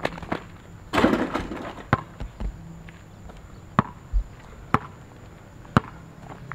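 Basketball bouncing on asphalt: single sharp bounces, about a second apart in the second half, with a louder hit and a short rattle about a second in.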